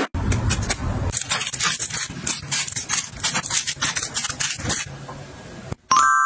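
Small paper drink cartons and plastic bottles being handled and set into plastic storage baskets: a quick run of light taps, knocks and clicks. Near the end a steady high tone starts suddenly.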